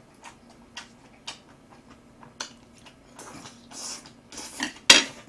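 Close eating sounds of Jjapaghetti black-bean instant noodles: a few soft mouth clicks, then a second or so of slurping as a mouthful of noodles is drawn in, more wet chewing, and one sharp click near the end, the loudest sound.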